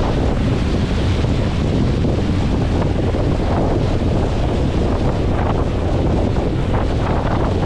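Heavy wind buffeting the microphone, a steady loud rush, from a motorboat under way on a lake, with the boat's water noise underneath.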